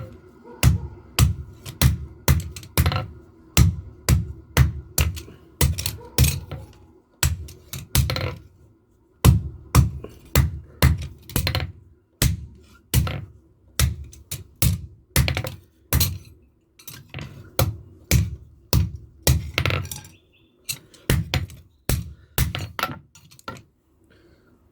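Hand-hammer blows on steel at the anvil, about two a sharp, ringing strikes a second with a few short pauses, as leaf-spring steel is forged into a knife blade.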